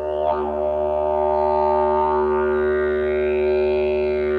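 Carbony Slide Super Boom Didge, a carbon-fibre slide didgeridoo, droning one steady low note. Bright overtones sweep up and down over the drone, with a short accent about a third of a second in. The sound rings in the reverberant acoustic of a road tunnel.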